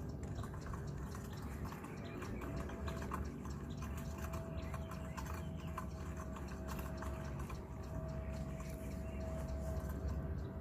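Small water splashes and drips over a steady low rumble. A faint steady high tone comes in about two seconds in and lasts until near the end.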